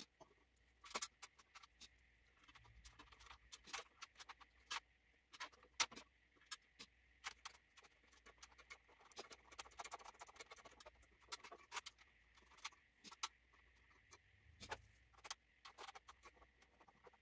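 Faint, irregular small clicks and scrapes of screws and the metal TV wall-mount bracket being handled and fitted to the back of a flat-screen TV by hand.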